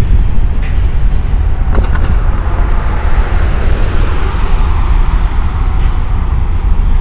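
Freight train of covered hopper cars rolling across a railway bridge, a steady low rumble. A car passes on the road below, its tyre noise swelling from about two seconds in and fading near the end.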